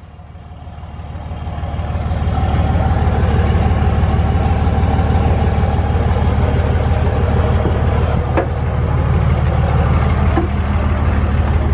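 Truck engine running with a steady low drone. It swells up over the first couple of seconds, then holds even.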